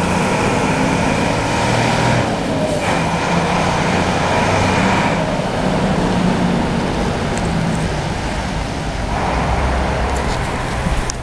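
Heavy fire engine's diesel engine running as the truck drives off. A car goes by, louder and deeper near the end.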